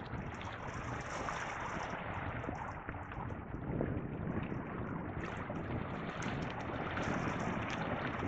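Wind buffeting the microphone over small waves lapping on a pebble beach, a steady rushing noise with no distinct events.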